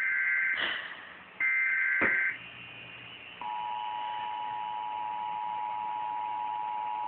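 Emergency Alert System test signal: two roughly one-second bursts of the shrill two-pitch digital header data, then about three and a half seconds in the steady two-tone attention signal begins and holds.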